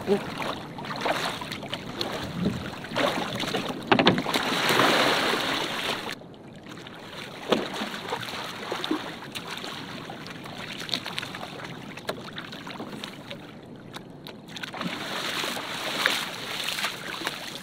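Water splashing and sloshing in and around a small wooden dinghy as a swimmer climbs in over the stern and she swamps, filling with water; the loudest rush of water comes about four seconds in.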